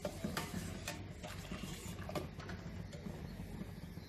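A spoon stirring milk curdling with lemon juice in a stainless steel pot, with a few light clicks of the spoon against the pot over a low steady hum.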